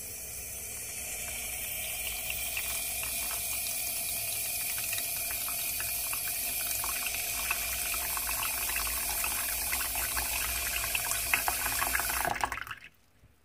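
Kitchen tap water running into a plastic tub of pork blood jelly cubes, splashing and filling the tub. The flow cuts off suddenly about a second before the end.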